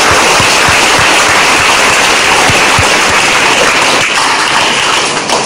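Audience applauding: dense, steady clapping that tails off near the end.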